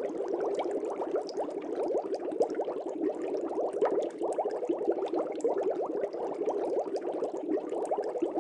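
Aquarium water bubbling steadily: a dense stream of small bubbles, many little rising blips a second, with no let-up.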